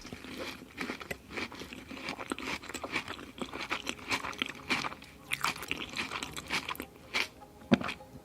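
Close-miked chewing with many crisp, irregular crunches of food being bitten in the mouth, one sharper crunch near the end.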